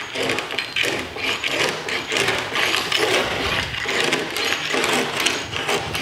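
A screen spline roller worked back and forth along a screen door frame, pressing the spline and screen down into the groove, in rapid rough rattling strokes about two a second.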